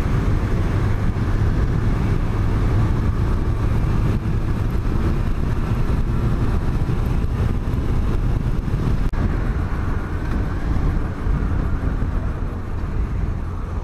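Motorcycle being ridden at steady speed: a continuous engine drone mixed with wind rush on the rider's camera microphone, easing slightly near the end.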